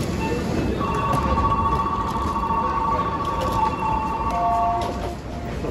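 Electronic warning tone at the train and platform doors: two steady pitches held together for about four seconds, ending with a brief lower tone, over a low station rumble.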